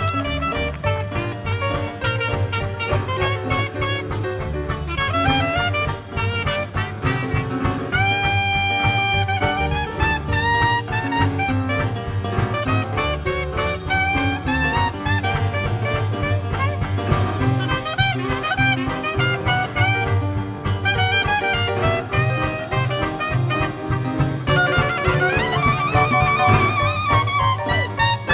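Traditional Dixieland jazz band playing an instrumental chorus: wind instruments carry a melody over a steady bass line and drum beat.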